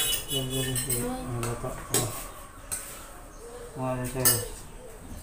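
A metal spoon scraping and clinking in a stainless steel pot as soup is served out, with a few sharp clinks, the loudest near the end.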